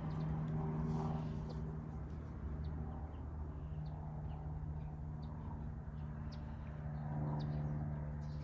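Steady low mechanical hum, like an idling engine, with scattered short, faint high chirps of small birds.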